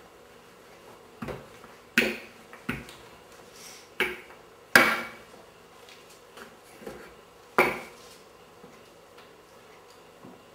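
Wooden rolling pin knocking and rolling on a wooden tabletop as roti dough is rolled out: a handful of sharp knocks, the loudest about five seconds in and another near eight seconds.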